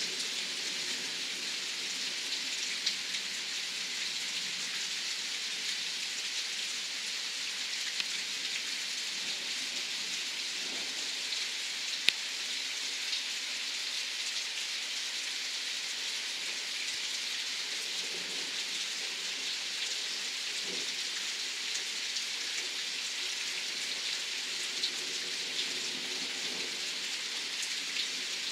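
Steady heavy rain falling in a thunderstorm, an even hiss with a few sharp ticks of drops, the loudest about twelve seconds in.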